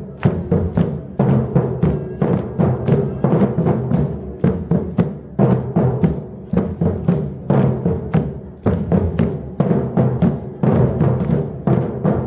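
Batucada drum ensemble playing a steady driving groove: deep surdo bass drums under fast, sharp higher drum strokes, several a second.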